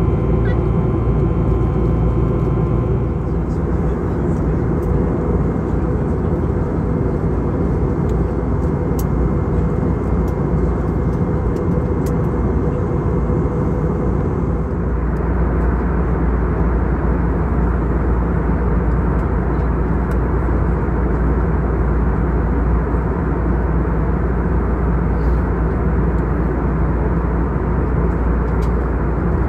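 Airbus A321neo cabin noise, loud and steady, from CFM LEAP-1A turbofans and the airflow past the fuselage: a deep rumble under a rushing hiss. Several steady engine tones fade out about three seconds in.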